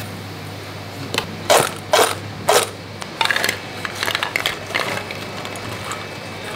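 Spoon and crisp fried pieces clinking against a stainless steel bowl as the pieces are dusted, tossed and tipped out onto a plate: about four sharp clinks, then a run of lighter rattling.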